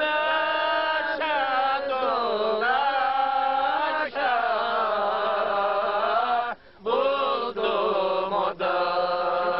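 A man singing unaccompanied in long held notes that bend and glide in pitch, with a brief pause for breath about two-thirds of the way through.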